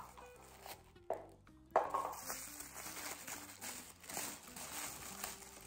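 Cardboard and paper packaging rustling and crinkling as a small advent calendar box is opened and its item unwrapped, with a sharper knock about two seconds in.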